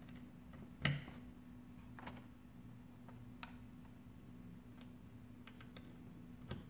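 Small clicks and ticks of wires and plastic connectors being handled inside an opened De'Longhi automatic espresso machine: a sharp click about a second in, then a few fainter ones a second or so apart, and another near the end.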